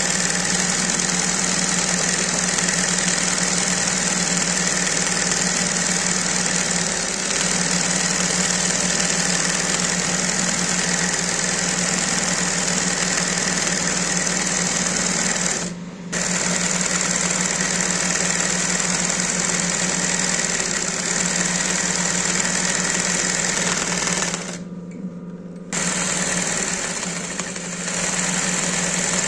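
Industrial embroidery sewing machine (golabatooni machine) running at a steady fast rate as it satin-stitches. The stitching stops briefly about halfway through and again for about a second near the end, while a low hum carries on under the second stop.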